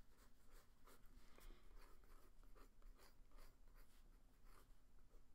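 Faint scratching of a pencil sketching on sketchbook paper, a quick irregular run of many light strokes.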